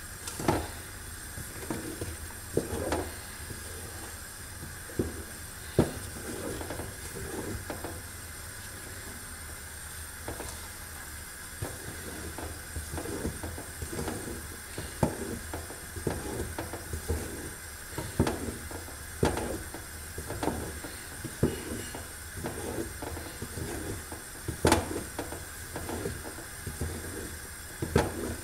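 A long wooden spoon stirring and scraping a thick sesame-and-hazelnut paste (zrir) in an aluminium pot, with irregular knocks of the spoon against the pot over a steady faint hiss.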